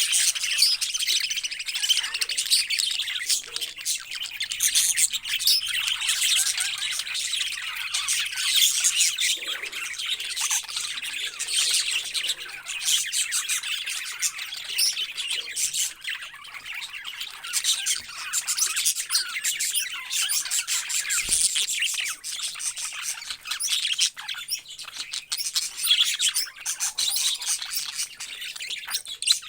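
Many parrots calling at once: a dense, continuous chatter of chirps and squawks with no break.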